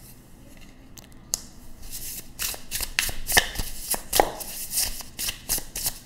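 A deck of tarot cards being shuffled and handled: a run of quick, irregular card flicks and slides starting about a second in.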